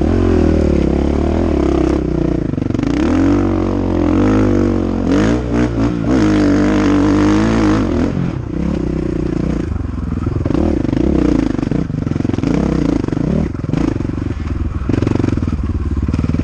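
KTM 500 EXC single-cylinder four-stroke dirt bike engine revving up and down under race load, with the pitch rising and falling and a few quick drops in the engine note about five seconds in.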